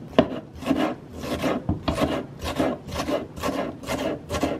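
Knife chopping green peppers on a wooden cutting board: a steady run of strokes, about two or three a second, each a short scrape and knock of the blade on the wood.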